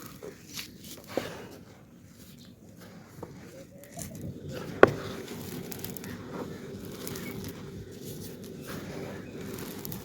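Dry clay pot pieces crumbling and being crushed, giving crunchy crackles and small snaps, with one sharp crack about five seconds in.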